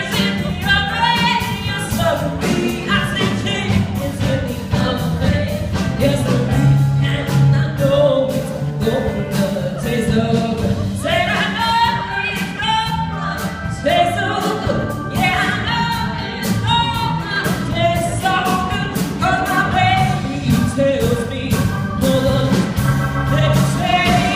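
Live performance of a song: singing over instrumental accompaniment with a steady beat.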